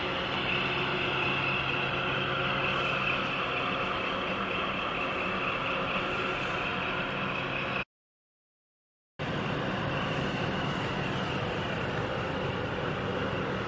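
Steady engine drone with a low hum and a faint high whine. About eight seconds in it cuts to dead silence for about a second and a half, then resumes unchanged.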